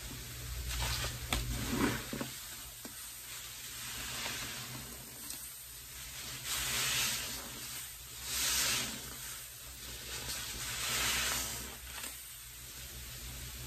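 Pine-cleaner suds sizzling as a soaked sponge is squeezed and worked in a bucket of sudsy water. A few sharp wet clicks come near the start, then the hiss swells and fades about three times.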